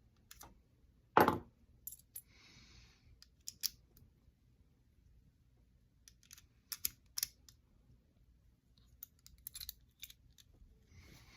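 Small steel hex wrenches being fitted into a GOAT multitool: scattered clicks and light metal taps, with a louder clack about a second in and a short scrape a couple of seconds in.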